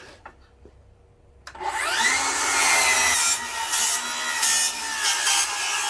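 Milwaukee cordless rear-handle circular saw starting about a second and a half in, its motor spinning up with a rising whine. It then cuts through treated 2x lumber with a Spyder Tarantula 24-tooth carbide blade made for wood with nails, the pitch sagging slightly under load.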